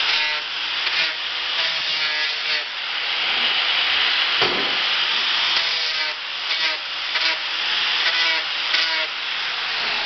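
Angle grinder deburring the end of a steel pipe: the motor runs with a steady whine under the harsh grinding of the disc on the steel. The grinding swells and eases again and again as the disc is worked over the pipe end.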